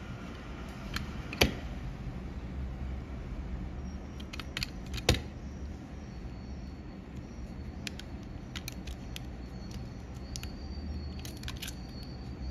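Scattered light clicks and taps of small objects being handled, with two sharper knocks about one and a half and five seconds in, over a steady low hum.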